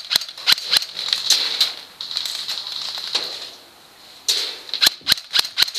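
Airsoft electric rifle (AEG) firing single shots in quick succession, sharp clicks a few a second, in a string near the start and another near the end with a pause of a couple of seconds between.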